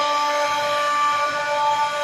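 CNC machine's stepper motors singing steady whining tones as the axes drive, the pitch set by the feed speed, over a steady machine hiss.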